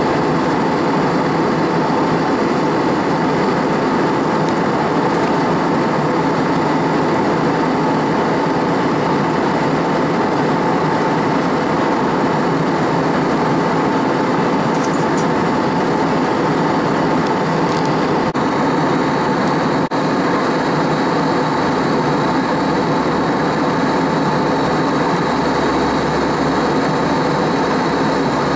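Steady cabin noise of an Airbus A320-232 airliner in motion: the whir of its IAE V2500 engines and rushing air, with a few steady tones running through it and a slight shift in the low rumble about two-thirds of the way through.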